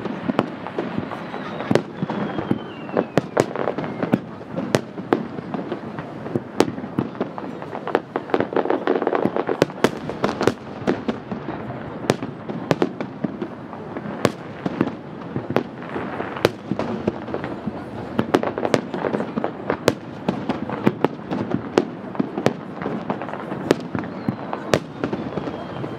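Fireworks display: aerial shells bursting one after another, with many sharp bangs at irregular intervals and crackling and rumbling in between.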